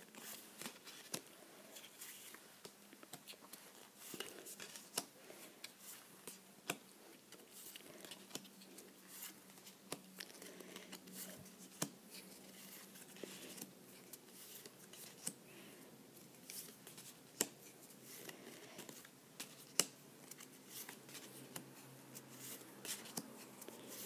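Pokémon trading cards being laid out one at a time on a table: faint, irregular clicks and slides of card on card, with a few sharper snaps.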